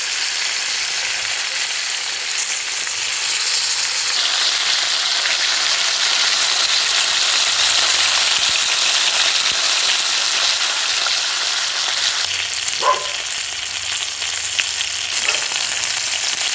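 Scaled and gutted whole fish frying in hot oil in a pot: a steady, dense sizzle.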